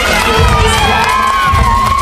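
Crowd of spectators cheering loudly, with many long, high-pitched screams overlapping one another.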